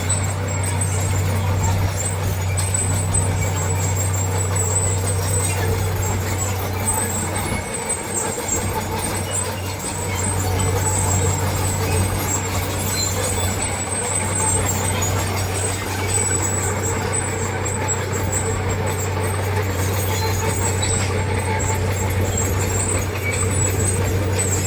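Heavy diesel engine of earthmoving machinery running steadily under load, easing off briefly about eight seconds in and then picking up again.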